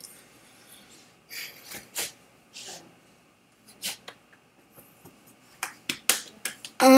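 Scattered short clicks and brief breathy noises, then near the end a loud, wavering vocal sound from a child, which runs on past the end.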